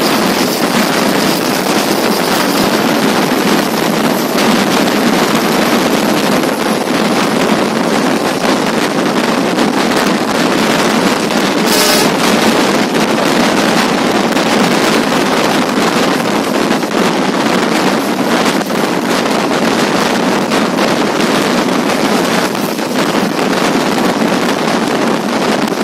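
A passenger train running at speed, heard from an open door or window: steady wheel-and-rail running noise mixed with wind buffeting the microphone. A brief sharp noise comes about halfway through.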